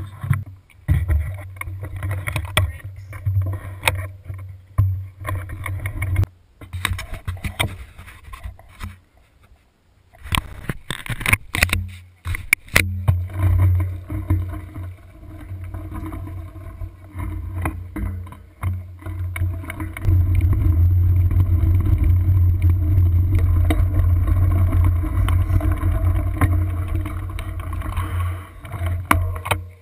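Wind rumbling on the microphone of a camera on the move, with scattered knocks and rattles. The sound changes abruptly at a few points, and a louder, steadier rumble sets in about two-thirds of the way through.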